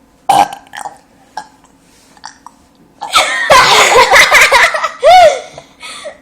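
A girl burping loudly for a contest: a short sound just after the start, then a long drawn-out burp from about three seconds in that lasts roughly two seconds and wavers in pitch, ending with a shorter one.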